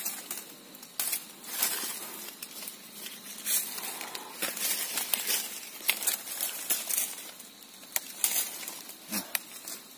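Rustling and crackling of leaves and thin stems being grabbed and pushed aside by hand, broken by irregular sharp clicks and snaps.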